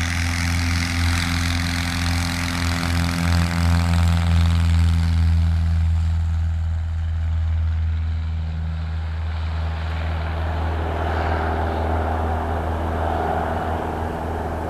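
Light aircraft piston engine and propeller running with a steady deep drone; a higher engine tone joins about ten seconds in.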